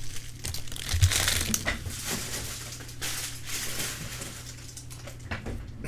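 Crinkling and rustling of packaging being handled, in irregular bursts that are strongest in the first half and then die down.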